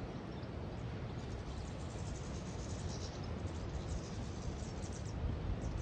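Steady wind rumble on the microphone, with faint, high, short twittering from a flock of small birds from about two seconds in until near the end.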